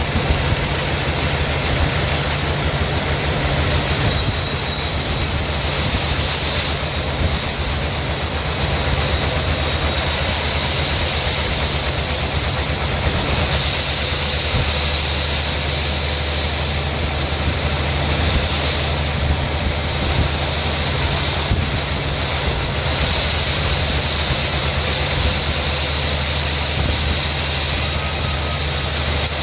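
Sawmill machinery running steadily: a low motor hum under a constant high-pitched whine, with no distinct cutting strokes or knocks.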